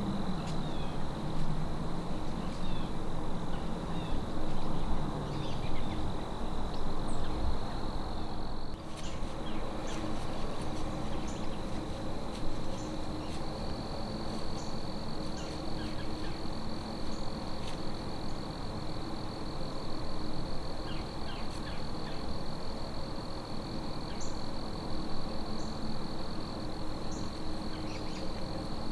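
Crickets trilling in one steady, high, continuous tone that steps slightly higher about halfway through, with scattered short high chirps over a low steady rumble.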